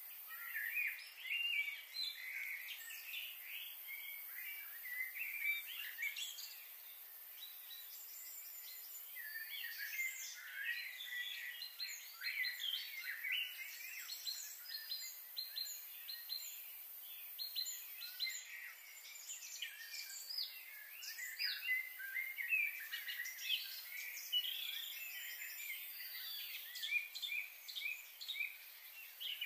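Small birds chirping and twittering in quick, overlapping calls, thickest in the second half.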